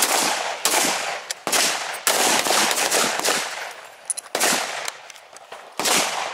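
Rifle shots from several shooters firing on a range line, about seven shots at uneven intervals, each trailing off in an echoing tail.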